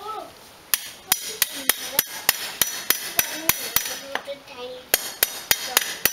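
Claw hammer striking a steel reinforcing rod (rebar) lying on a concrete floor, about three blows a second with a metallic ring, starting under a second in: the rod is being hammered straight.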